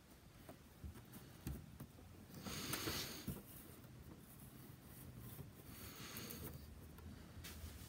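A clear plastic display box being handled and set down: light knocks, then scratchy rustling and scraping of the plastic, loudest about two and a half seconds in, with a weaker rustle about six seconds in.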